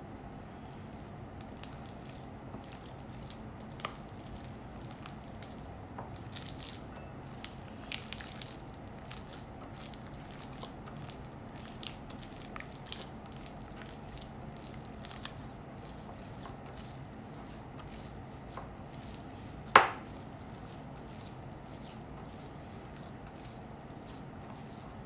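Hands kneading soft bread dough in a glass mixing bowl, working butter in: irregular soft squishing and slapping sounds over a steady low hum, with one sharp knock a little after three-quarters of the way through.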